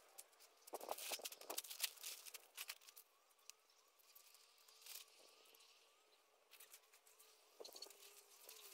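Near silence: faint outdoor ambience with scattered light clicks in the first half and a faint steady tone through the middle.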